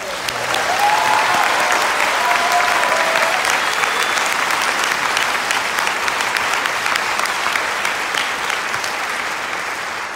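Audience applauding: many hands clapping, swelling within the first second, holding steady, then easing slightly toward the end.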